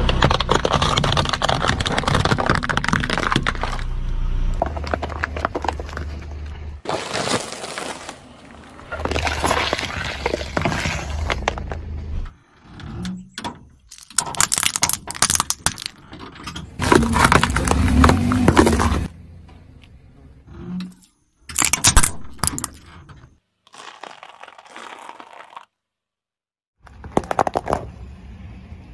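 A car tyre rolling over and crushing objects on gravelly asphalt: plastic toy cars and a small toy bus cracking and breaking, then sticks of chalk crunching. It comes as several separate bursts of crunching and cracking that start and stop abruptly.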